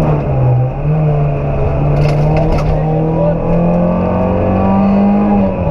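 Rally car engine heard from inside the cockpit at speed. The engine note dips briefly near the start, then climbs steadily under acceleration and falls with a gear change near the end. There is a short clatter about two seconds in.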